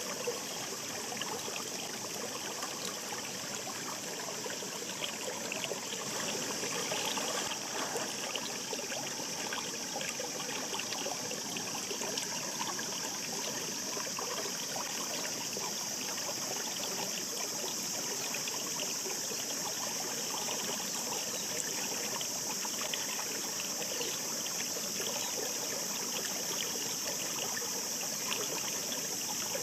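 A shallow stream babbling over its bed: a steady rush of running water, full of small trickles and splashes.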